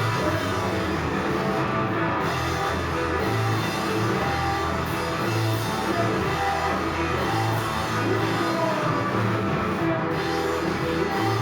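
A rock band playing a song at a steady, loud level, with electric guitar, drums and a bass line pulsing under it.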